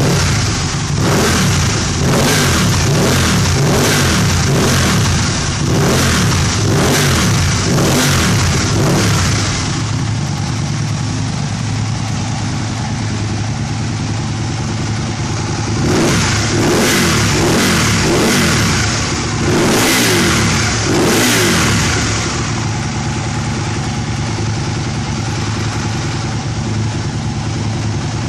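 Aprilia RSV 1000 R's 60-degree V-twin breathing through a Remus aftermarket silencer, revved while standing in quick throttle blips about once a second for the first ten seconds, then idling. Near the middle it is blipped about four more times and then settles back to a steady idle.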